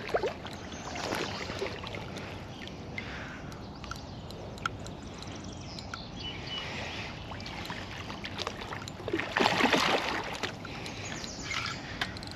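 A hooked carp splashing and thrashing at the surface close to the bank, with the largest splash about nine and a half seconds in.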